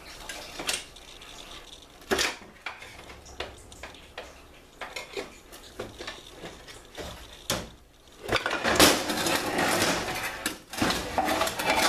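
Shop rag wiping out a Ford C6 automatic transmission case, with scattered metal clinks and knocks from the case and tools being handled. A rough rubbing noise runs for about two seconds from about eight seconds in.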